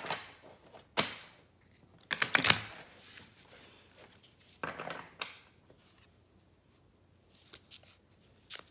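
Tarot card decks being handled on a table: a few sharp taps and short rustling slides of the cards. The loudest rustle comes about two seconds in, and there are faint clicks near the end.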